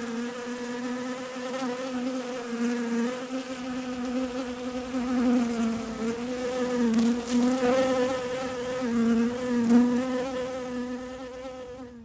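A honeybee buzzing in flight: one continuous low buzz that wavers in pitch and swells and fades in loudness, stopping abruptly at the end.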